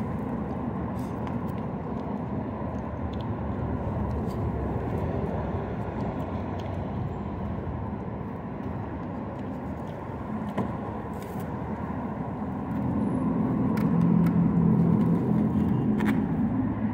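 Steady road traffic noise, with a vehicle engine hum growing louder about three-quarters of the way through.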